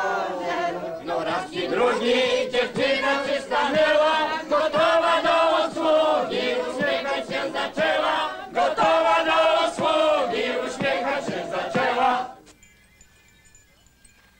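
A group of voices singing loudly together in a chant-like chorus, with many voices overlapping and sliding in pitch. It cuts off abruptly about twelve seconds in, leaving only faint high tones.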